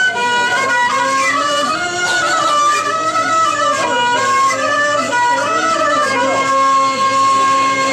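Traditional music: a sustained drone holds steady while an ornamented melody line glides and wavers above it.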